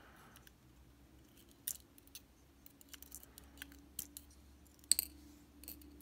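Scattered light metallic clicks and taps from steel tweezers picking pins out of a lock cylinder's plug and setting them in an aluminium pin tray, the sharpest about five seconds in. A faint steady hum lies underneath.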